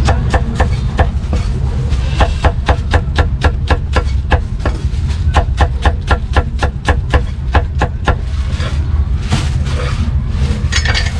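Cleaver chopping a cucumber into slices on a wooden chopping block: quick, even knocks about four or five a second, stopping about eight seconds in, then a few scattered knocks. A steady low rumble runs underneath.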